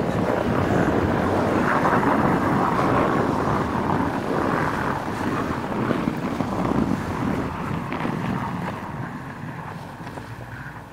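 Kia Rio wagon's engine revving hard as its front wheels spin and churn through deep snow. The noise fades over the last few seconds as the car pulls away up the track.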